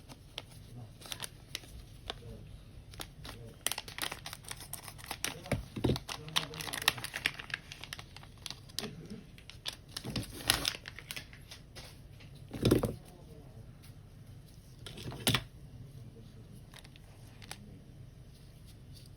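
Plastic packaging being handled and opened: irregular crinkling, rustling and tearing with scattered clicks, and two louder thumps a little past the middle.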